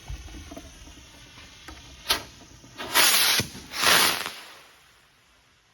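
Two small consumer firework rockets going off, each a loud hissing rush lasting about half a second, near three and four seconds in, after a single sharp crack about two seconds in.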